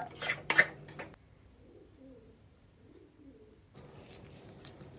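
Metal spatula scraping and clinking on a steel plate as the sticky sesame-and-jaggery tilgul mixture is pushed about, loudest in the first second and again from near the end. In the quiet stretch between, a bird coos faintly a few times.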